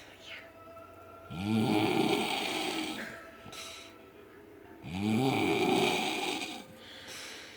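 A man snoring: two long snores about three and a half seconds apart, much quieter between them.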